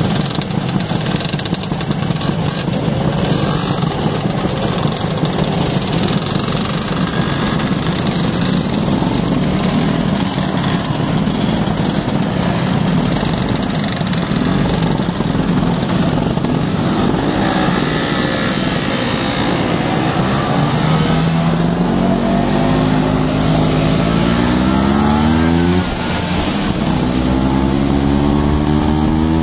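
Many motor scooter engines running together as a pack idles and pulls away. From about twenty seconds in, one nearby engine rises steadily in pitch as it accelerates, drops back near the end as it changes gear, then rises again.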